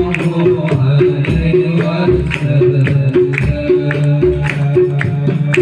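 Instrumental sholawat music: drums and percussion keep a steady rhythm of low beats and sharp strokes under a short, repeating melodic figure.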